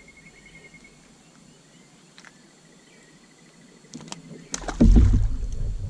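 A faint bird trill of rapid repeated high notes, heard twice, over quiet open-water ambience. About four and a half seconds in, a loud burst of rumbling, rustling handling noise on the microphone as the rod is moved.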